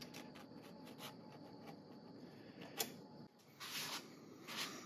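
Faint handling of small metal parts, a feeler gauge worked in a piston ring's end gap, with light scraping and one sharp click about three seconds in. After a short silent gap, two brief scratchy rubs.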